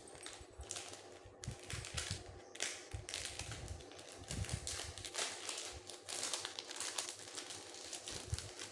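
Thin clear plastic packet crinkling and rustling as it is handled and opened, in a dense run of irregular crackles and clicks with a few soft bumps.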